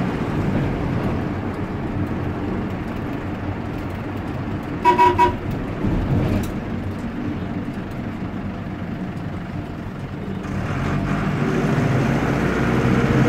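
Air-cooled Deutz F4L912 diesel of an Otokar M-2000 minibus running under way, heard from inside the cab. About five seconds in, a horn gives three quick toots. Near the end the engine grows louder as it pulls.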